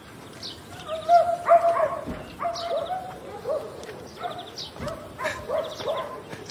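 A dog barking repeatedly, about two short barks a second, with a few sharp knocks among them.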